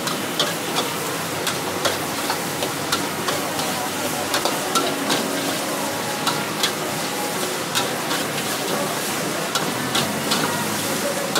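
Rice being stir-fried in a wok over a gas flame: steady sizzling, with a metal spatula scraping and clinking against the wok in irregular strokes, about two a second.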